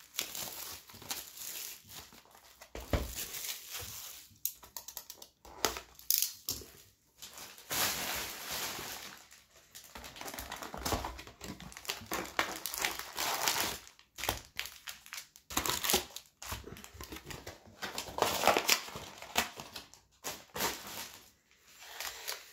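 Foil-wrapped Upper Deck CHL Hockey card packs crinkling in irregular bursts as they are pulled by hand out of the cardboard hobby box and set down, with a few light knocks from handling.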